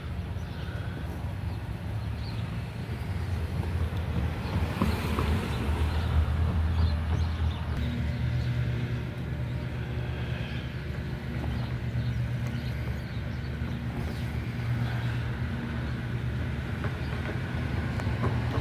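Low steady rumble of an engine running nearby, over outdoor background noise.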